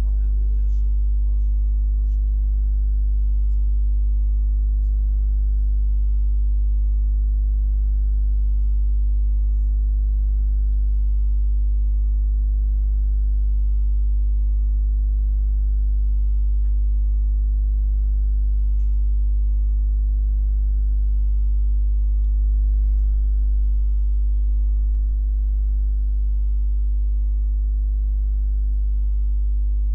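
Steady electrical mains hum: a low buzz with a stack of evenly spaced overtones that does not change. A few faint clicks come and go over it.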